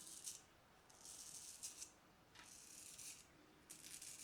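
Filarmonica 4/8 straight razor scraping whiskers off a lathered face: faint short raspy strokes, about one a second.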